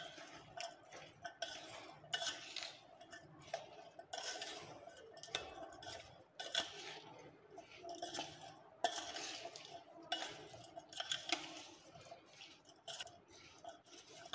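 Metal spoon stirring ker berries and dry spices in a stainless steel bowl: faint, irregular scrapes and clinks of the spoon against the bowl as the small berries tumble.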